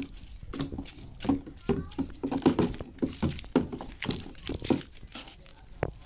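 A small child's footsteps in sandals on a dirt path, an irregular run of short thuds and scuffs a few times a second.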